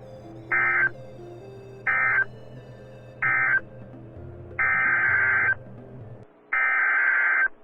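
Emergency Alert System SAME data bursts on NOAA Weather Radio, buzzy digital tone bursts. There are three short end-of-message bursts about a second apart, then the first two of the three longer header bursts that open the next alert.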